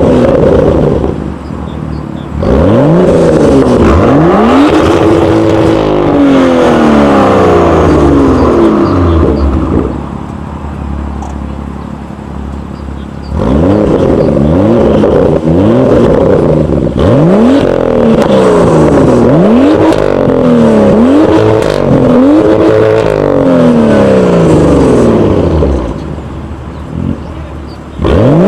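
BMW M2's turbocharged straight-six with an aftermarket sport exhaust, revved repeatedly: the pitch climbs and falls again blip after blip. There are two long runs of revving, with a drop back to idle about ten seconds in and again near the end.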